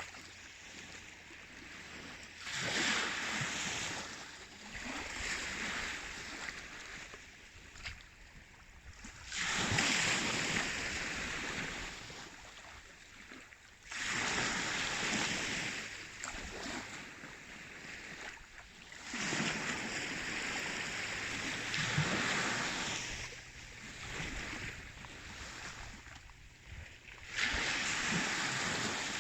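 Baltic Sea waves washing in, a surge of hiss every four to five seconds that swells quickly and then fades.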